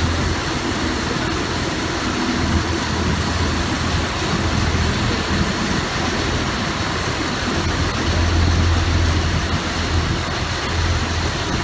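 An engine running steadily under a constant rush of noise, its low hum swelling now and then.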